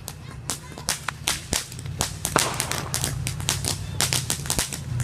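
Fireworks going off as a rapid, irregular string of sharp cracks, several a second, thickening and getting louder after about two seconds, over a steady low hum.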